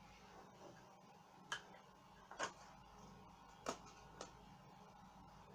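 Near-silent room tone broken by a few short, sharp clicks spaced about a second apart.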